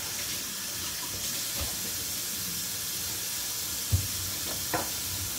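Kitchen tap running steadily into a sink, with a sharp knock about four seconds in and a lighter click just after.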